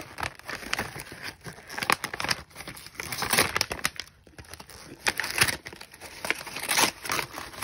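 Gift-wrapping paper crinkling and rustling as a present is carefully unwrapped, with irregular crackles and short tearing sounds.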